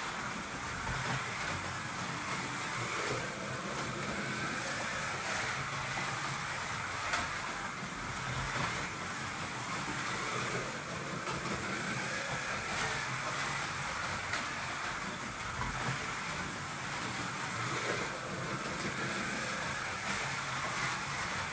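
Scalextric slot cars racing round the track, their small electric motors whining steadily as the cars speed up and slow down, so the pitch rises and falls.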